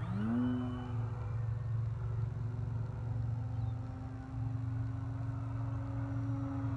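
Brushless electric motor and propeller of an FMS Pitts V2 1400mm RC biplane on a 6S LiPo, throttled up right at the start with a quick rising whine, then holding a steady drone that creeps slightly higher in pitch. A steady low rumble lies underneath.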